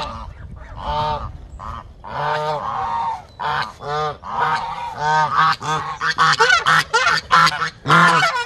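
A flock of domestic geese honking, the calls coming faster and overlapping more thickly, and growing louder, toward the end.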